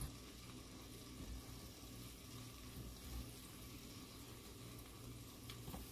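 Faint, steady sizzle of hot bacon grease in a stainless steel skillet, with brioche buns toasting in it.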